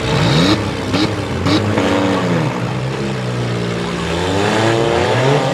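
Several front-wheel-drive demolition derby cars' engines revving hard, pitches climbing and falling over one another. Three sharp bangs about half a second apart in the first second and a half.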